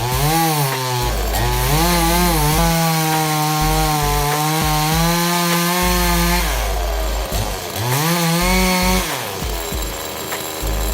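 The 62 cc two-stroke engine of a Parker PCS 6200 chainsaw tree-cutting tool revving up and holding a high, steady pitch while cutting for about six seconds. It then drops off, revs again briefly, and falls back near the end, over background music with a low beat.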